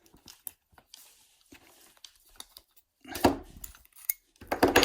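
Small metallic clicks and scrapes of a pick and tension tool in an ERA 5-lever insurance padlock, then louder metal clunks about three seconds in and near the end as the picked padlock is worked open.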